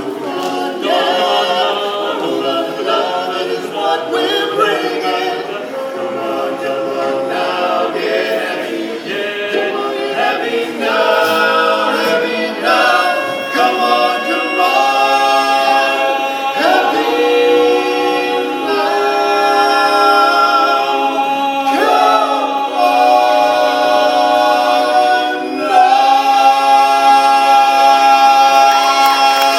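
Barbershop quartet singing a cappella in close four-part harmony, moving through sustained chords and building to a long, louder held chord near the end.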